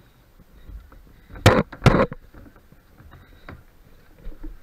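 Two loud thumps less than half a second apart on a hollow plastic tube slide, then a lighter knock about a second and a half later.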